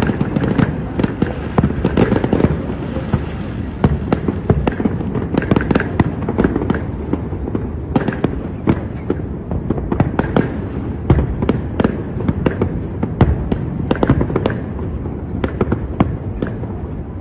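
Fireworks going off continuously: a dense, irregular run of sharp cracks and bangs, several a second, over a steady rumbling bed.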